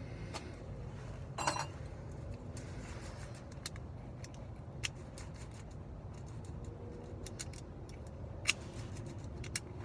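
Small metal clicks and rattles of a Weiser lock cylinder and its pins and parts being handled during rekeying: a brief rattle about a second and a half in, then scattered sharp clicks, the clearest near the middle and near the end.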